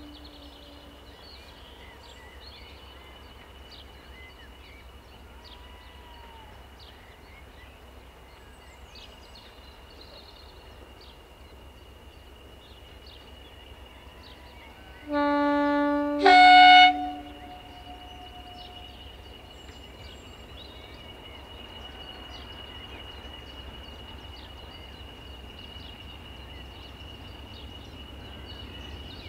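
Diesel locomotive's two-tone horn sounded about halfway through: a low note held for about a second, then a shorter higher note. The tail of an earlier low horn note dies away at the start. Birds chirp throughout, and a faint low engine rumble grows louder towards the end as the locomotive approaches.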